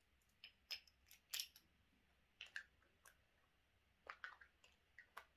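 Small magnetic fidget balls clicking together as they are handled: about a dozen faint, sharp clicks at irregular intervals.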